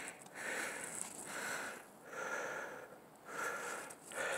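Dog snuffling and sniffing with his nose in fresh snow, a soft breathy burst every second or less.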